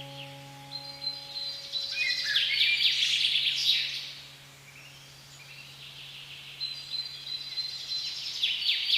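Small birds chirping and calling in two busy spells, over a long, low sustained note that slowly fades and stops near the end.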